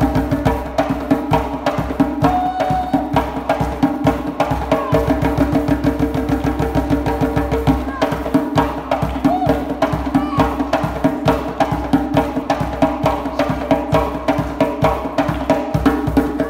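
Djembe played fast by hand in a solo, a dense run of rapid slaps and tones with no break, the metal rattle plates fitted to the drum sounding with the strokes.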